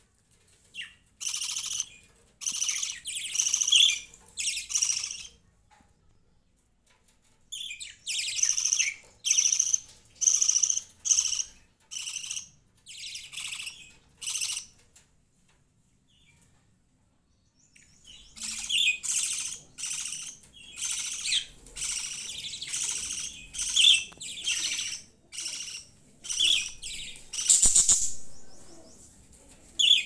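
Budgerigars chirping and chattering in quick runs of short, high calls, in three spells with short quiet gaps between them.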